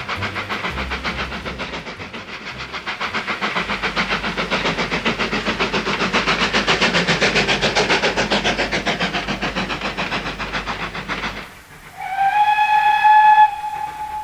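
Steam locomotive working under steam, its exhaust beating rapidly and evenly, growing louder and then fading. The beats stop abruptly about eleven seconds in, and a loud steam whistle blast follows, held for over a second and trailing off quietly.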